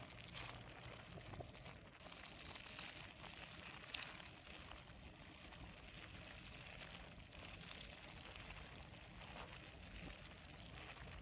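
Faint wet squishing of Orbeez water beads and squishy foam, with scattered small clicks and one sharper click about four seconds in.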